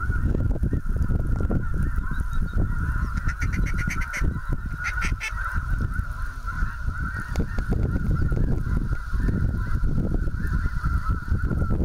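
A large flock of geese calling overhead in a steady, dense chorus of honks, with wind rumbling on the microphone. About three to five seconds in, a couple of quick runs of sharper, higher calls stand out.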